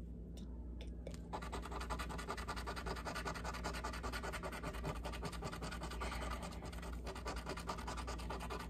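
Rapid scratching strokes on a lottery scratch-off ticket, rubbing off the coating, starting about a second in.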